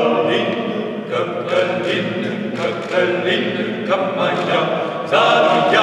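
Male vocal trio singing a cappella in close harmony, the chord changing with a fresh attack about once a second.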